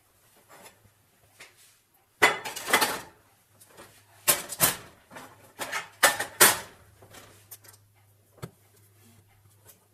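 Metal muffin tin clattering and scraping on the stovetop as it is handled with a cloth. The clanks come in three clusters about two seconds apart, then one single knock near the end, over a low steady hum.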